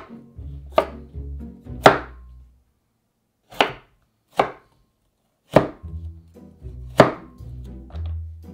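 Chef's knife cutting carrots on a wooden cutting board. The blade knocks sharply against the board about seven times, at uneven intervals.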